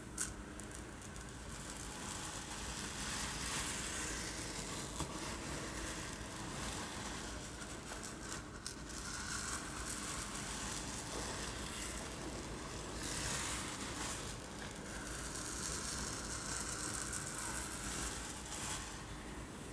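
Uncooked rice grains rolled and shaken back and forth in a container as a homemade surf effect: a rushing, rattling hiss that swells and fades several times like waves on a beach. A few sharp ticks stand out, one just after the start.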